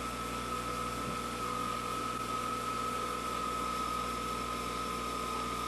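VHS-C camcorder running with a steady high-pitched whine over a low hum.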